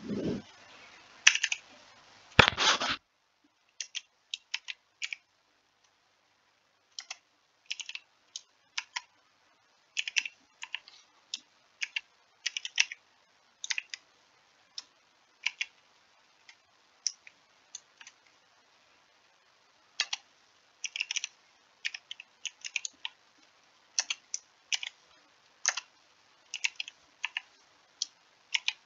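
Typing on a computer keyboard: irregular keystrokes in short quick runs, with pauses of a second or two between them. Two louder knocks come in the first three seconds.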